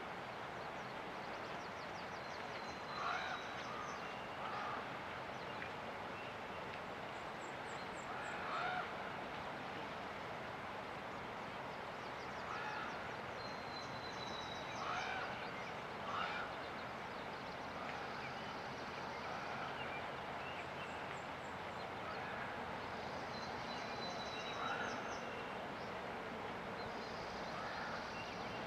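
Birds chirping and trilling over the steady rush of a river. A louder call note comes every few seconds.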